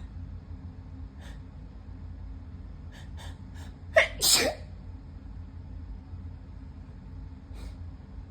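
A person sneezes once, loudly, about four seconds in: a sharp start running straight into a longer burst. Several short, quiet sniffs come before it and one near the end.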